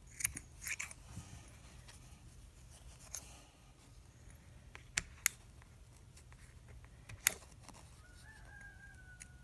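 Scissors snipping excess felt, a few separate sharp cuts spread over several seconds. Near the end a faint, drawn-out tone, falling slightly in pitch, sounds for about a second.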